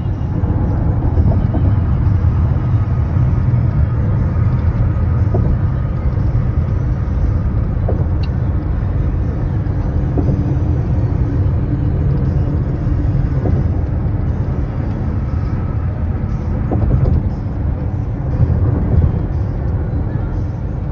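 Steady road and tyre rumble inside a car's cabin while cruising on a freeway, with a few faint clicks.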